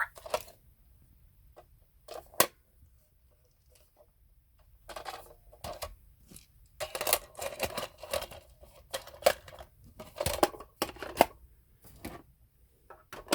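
Hard plastic toy being handled: a sharp click a couple of seconds in, then a run of irregular clicks and clattering.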